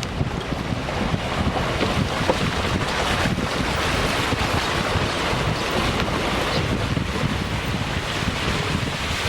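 Wind buffeting the microphone over a steady rushing of water from the rainstorm.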